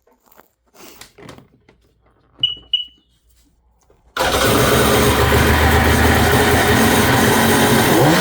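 A few faint clicks and two short high beeps, then about four seconds in the Sea-Doo GTX's two-stroke twin engine comes in abruptly and runs loudly and steadily.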